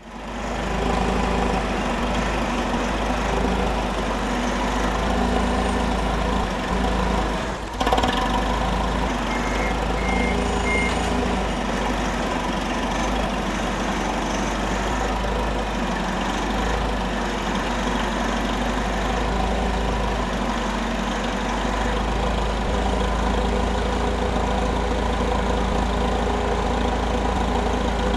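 Forklift running steadily, with a sharp clunk about eight seconds in. A few short, high beeps follow soon after, and another comes at the very end.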